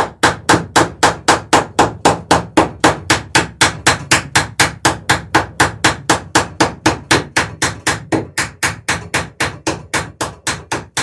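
Hammer riveting the sheer strakes of a wooden dory: a long run of rapid, even blows, about four a second.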